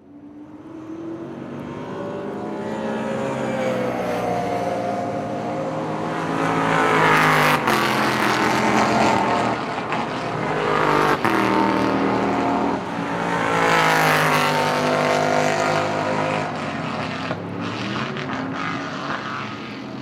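V8 saloon race cars running at speed past the trackside, engine notes climbing and falling as the cars come by, with the loudest passes about seven and fourteen seconds in.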